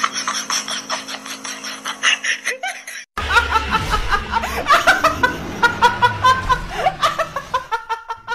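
A woman laughing loudly in shrieking, bouncing bursts, starting suddenly about three seconds in. Before that, a quick run of ticks over a steady hum.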